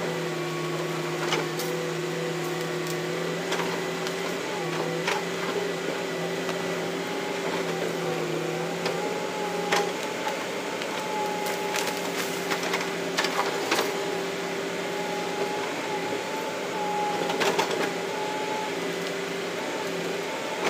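Heavy-equipment diesel engine running steadily, with a hydraulic whine that wavers a little in pitch. Scattered sharp knocks and cracks of timber come as an excavator's log grapple works among felled logs.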